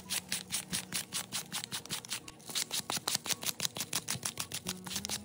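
Folded sandpaper rubbed quickly back and forth along the edge of a stitched vegetable-tanned leather sheath: a fast, even scratching of about six strokes a second, smoothing the edge ahead of burnishing.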